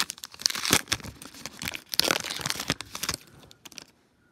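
Baseball-card pack wrapper crinkling and tearing in a run of quick bursts as it is ripped open and the cards are pulled out, for about three seconds.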